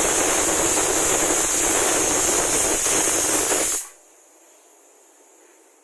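Loud steady hiss that cuts off abruptly about four seconds in.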